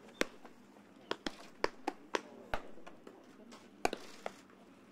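Baseballs smacking into leather catcher's mitts: a string of sharp, separate pops at irregular intervals, several pitchers throwing at once, a few coming two in quick succession.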